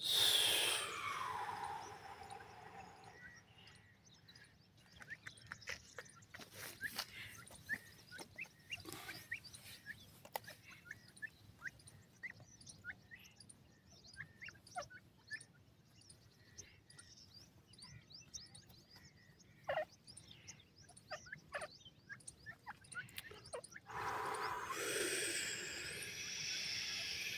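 Grey francolin chicks giving soft, short, high chirps scattered throughout while they forage. A louder call falls steeply in pitch at the start, and a louder drawn-out sound with several tones sets in near the end.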